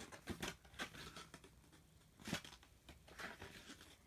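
Pages of an album photo book being turned by hand: a series of short paper swishes and flaps, the loudest about two seconds in.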